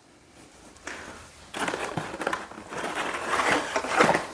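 Rustling and crinkling handling noises with a few sharp knocks, like things being moved and picked up.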